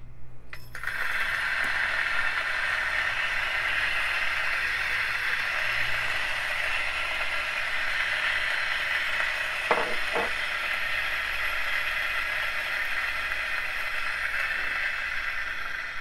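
Option-O P64 electric coffee grinder running, its 64 mm flat burrs grinding an 18 g dose of beans fine for espresso in a steady whirr that starts about a second in. Two brief knocks come partway through.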